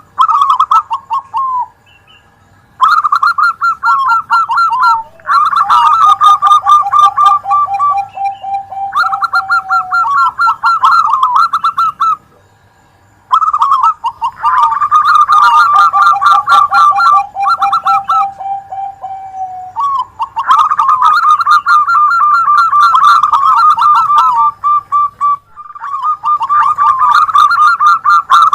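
Zebra doves (perkutut) cooing: phrases of rapid, rhythmic staccato coos, often two birds singing over each other at different pitches, with brief pauses between phrases.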